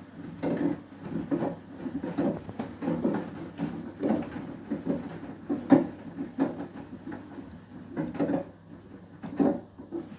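Beko WTK104121W washing machine tumbling a wet load during its Eco 40 final rinse: irregular dull thuds, about one to two a second, as the laundry drops in the turning drum, over a faint steady hum.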